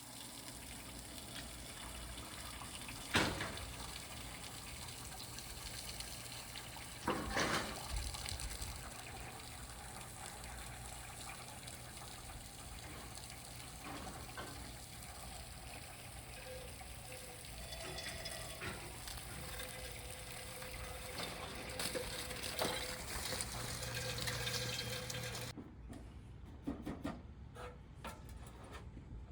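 A steady rushing noise with sharp knocks about three and seven seconds in, cutting off suddenly near the end.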